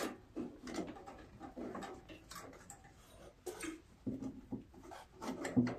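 Faint, scattered rustles and light knocks of hands working a rubber drive belt around the pulleys under a riding mower, with two short low vocal sounds, one about four seconds in and one near the end.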